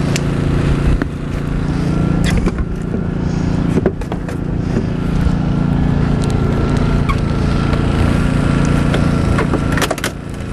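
Gas engine of a hydraulic rescue tool's power unit running steadily, with scattered sharp metallic clicks and cracks as the hydraulic cutter works on the car's door and pillar.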